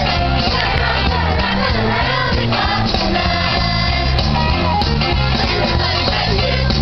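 Middle school chorus singing together over an instrumental accompaniment with a bass line.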